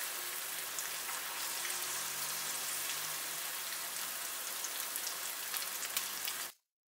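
Battered chicken strips deep-frying in a pan of hot oil: a steady, fine crackling sizzle that cuts off suddenly just before the end.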